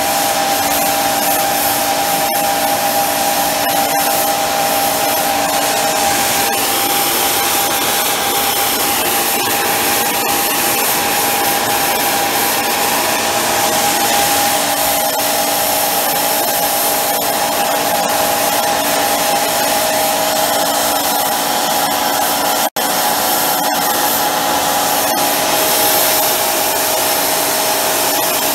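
Homemade propane micro jet burner running steadily: a loud, even rush of the high-velocity air jet and burning propane, with a steady tone running through it, while the combustion can is sustaining its flame. The sound breaks for an instant about 23 seconds in.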